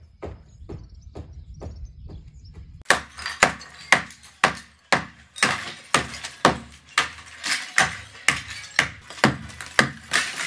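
Hand hammer striking an old brick wall as it is knocked down, steady blows about two a second. The blows are faint and distant for the first few seconds, then loud and close from about three seconds in, with broken brick and rubble clattering down between them.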